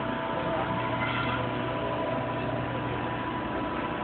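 Steady hum of a powered-up Cincinnati CBII hydraulic press brake, a constant low drone with a few steady higher tones over a noisy shop hiss.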